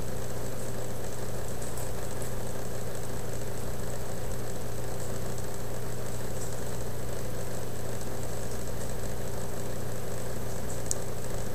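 A steady low mechanical hum with no knocks or clicks.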